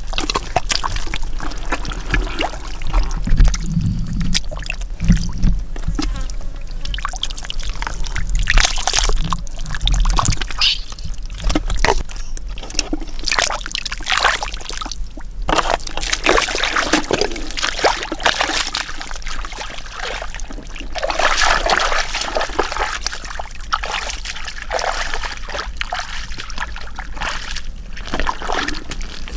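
Wet mud and shallow muddy water being worked by hands and feet: irregular squelching, sloshing and trickling as the mud is dug through by hand for fish.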